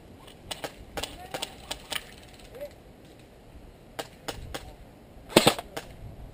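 Airsoft guns firing single shots: scattered sharp snaps and clicks, with a louder short burst about five and a half seconds in.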